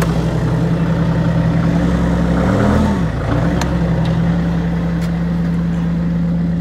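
Bobcat skid steer's diesel engine running steadily shortly after a cold start, its speed briefly rising and then dipping about three seconds in.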